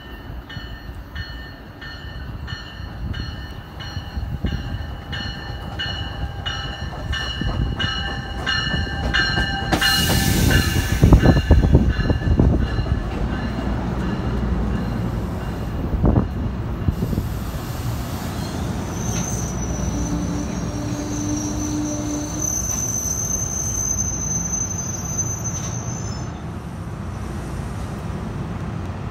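NJ Transit multilevel commuter train pulling into a station. A bell rings steadily, about one and a half strokes a second, for the first nine seconds or so. The rumble of the cars rolling past then grows loud about ten seconds in, and a high brake squeal sounds from about twenty seconds in as the train slows.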